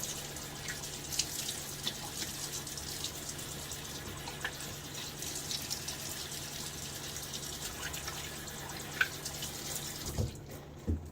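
Tap water running into a bathroom sink with light splashes and drips, for a rinse between shaving passes. It stops about ten seconds in, followed by two soft knocks.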